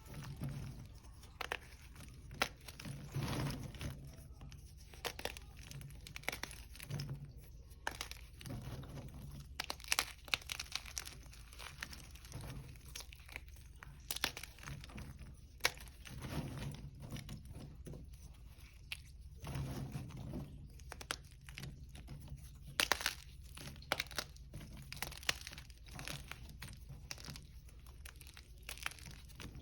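Hard, crunchy gym chalk being crushed, with irregular cracks, crunches and sharp snaps as the pieces break apart.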